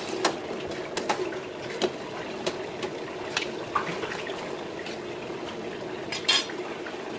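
Water bubbling in a stainless steel pot as greens are blanched, with a spoon clinking against the pot now and then. Water drains off a plate of greens and trickles back into the pot. A sharp clatter comes near the end.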